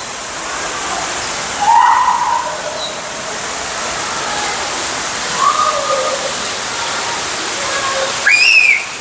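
Steady rushing of falling water, with aviary birds giving a few short calls over it and one louder whistled call that rises and falls near the end.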